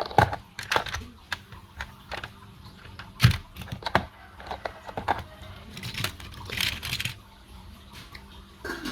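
Irregular clicks, taps and crinkling, with two louder knocks, one just after the start and one about a third of the way in.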